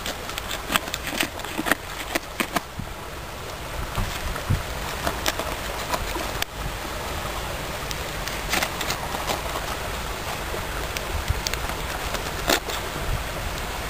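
Small hand trowel digging into a dirt bank: irregular sharp scrapes and clicks of the blade in soil and grit, over a steady rushing background noise.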